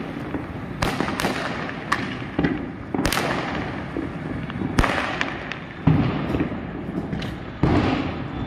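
Fireworks going off: aerial shells bursting with sharp bangs roughly every second, over a constant din of smaller firecracker pops, with two of the loudest bangs near the end.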